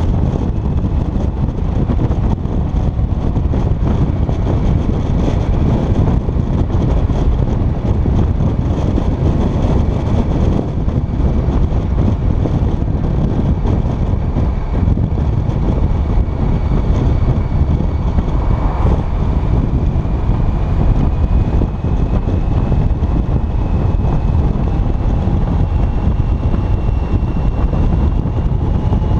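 Wind buffeting the microphone of a touring motorcycle's rider at road speed, over the motorcycle's engine running steadily. A faint whine rises slowly in pitch over the last several seconds.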